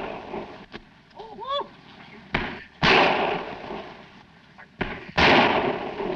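Rifle shots: two loud bangs with an echoing tail, about three and five seconds in, each just after a sharp click, and the fading tail of an earlier shot at the start.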